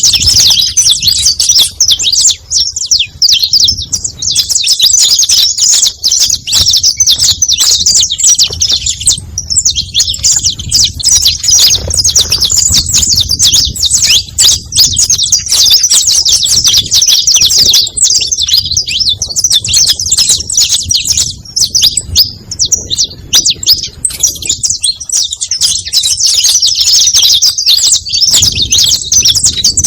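Saffron finch (canário-da-terra) singing loudly in a fast, nearly continuous stream of high chirps and trills, with only a short break about nine seconds in.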